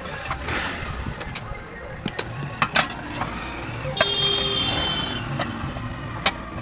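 Roadside vehicle traffic running, with scattered sharp metallic knocks and a brief high squeal about four seconds in.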